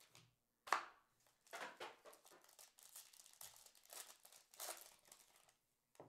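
Foil wrapper of a Panini Plates & Patches football card pack crinkling and tearing as it is ripped open by hand, in a run of short crackly bursts, the sharpest near the start.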